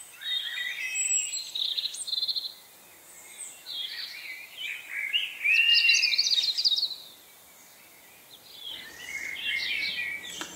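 Birdsong: quick chirps, trills and gliding whistles in three bursts separated by short pauses, loudest in the middle burst.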